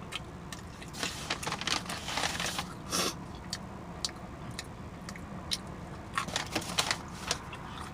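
Close-miked chewing and wet lip smacking of a person eating, in two clusters of quick clicks and smacks, one in the first three seconds and another around six to seven seconds in.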